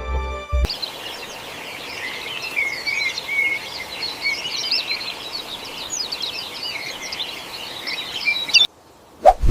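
Many small birds chirping busily together over a steady outdoor noise. Background music is heard for the first half-second, and the chirping cuts off near the end, followed by a sudden loud sound.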